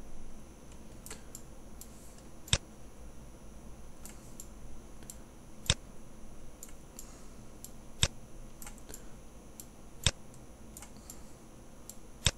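Computer mouse button clicks: about five sharp clicks two to three seconds apart, with fainter ticks between them, over a faint steady high whine.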